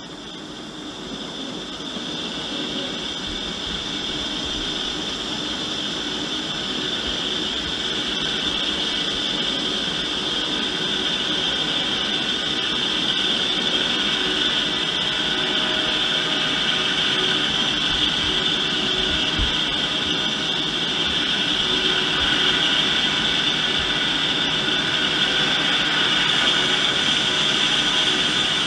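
Large vertical lathe turning the inside of a cast bell to tune it, the cutting tool shaving metal from the spinning bell. A steady machining noise with a high whine, growing louder over the first few seconds and then holding.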